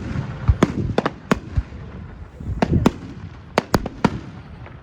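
Fireworks going off: a rapid series of sharp bangs and cracks in clusters, over a low rumbling of echoing bursts.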